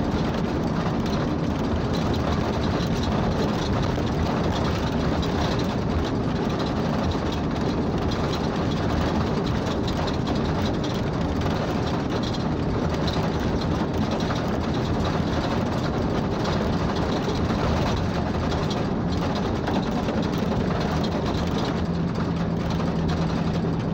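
A vehicle driving at a steady speed on a paved road: a continuous, even mix of engine hum and road noise.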